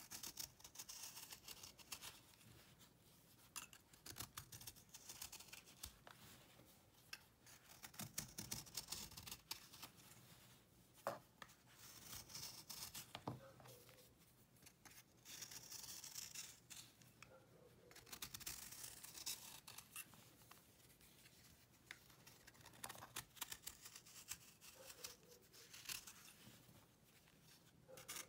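A knife blade shaving a dried cake of cleaning paste: quiet scraping strokes every few seconds, each a second or two long, with crisp crackles as flakes break off.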